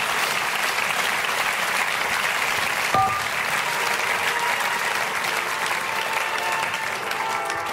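Audience applauding steadily, with one brief sharp sound about three seconds in.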